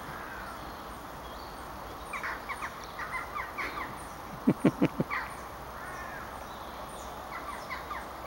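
Animal calls: short, high chirps in scattered runs, with a quick series of four louder, lower calls about halfway through.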